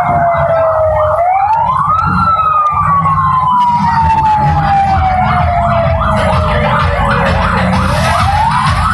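A loud wailing siren whose pitch slides slowly down and sweeps quickly back up, once about a second in and again near the end, over a dense low rumble.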